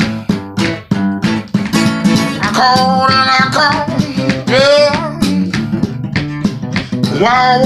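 Acoustic guitar picked in a blues style, with a man singing a few drawn-out notes over it, one held about three seconds in and one bending in pitch shortly after.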